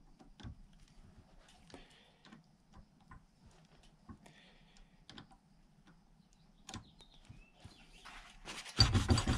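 Small hand tools clicking and tapping on metal at irregular intervals as the small screws holding the solenoid on a HEUI diesel injector are tightened with a spline bit. The sounds are faint, and a louder rustling clatter comes near the end.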